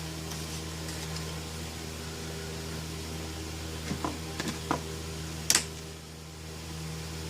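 Memory sticks being pressed into the slots of a Mac Pro RAM riser card: a few light knocks and clicks about four seconds in, then one sharp click about five and a half seconds in as a module seats and its latch snaps shut, over a steady low hum.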